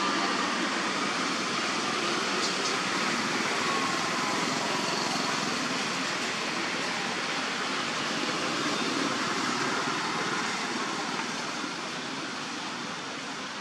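Steady, even hiss of background noise, easing a little toward the end.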